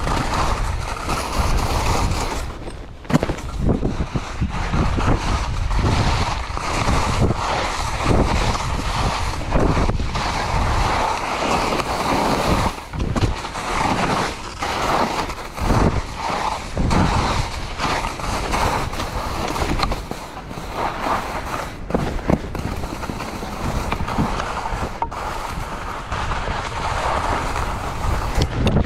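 Skis sliding and scraping over snow at speed, mixed with wind rushing over the camera microphone; the noise rises and falls irregularly, with brief dips.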